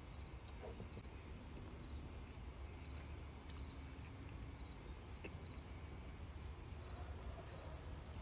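Insects in a steady, high continuous chorus, with a faint low rumble beneath.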